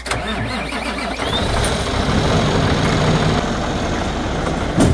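Cummins ISX15 diesel engine running, getting louder about a second in, with a rising whine that levels off into a steady high tone. A sharp knock near the end is the loudest sound.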